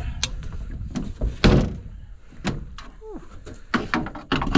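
Knocks and thuds of a boat's deck fish-box hatch being handled and opened. The loudest thud comes about one and a half seconds in, with a cluster of quicker clicks and knocks near the end.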